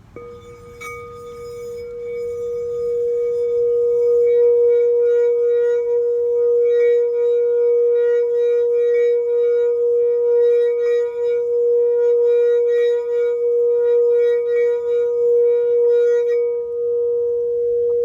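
Crystal quartz singing bowl tuned to A, held in the hand and sounding one pure, steady tone. The tone swells over the first few seconds, then holds with a slight wavering pulse. Its faint higher overtones fade out near the end while the main note rings on.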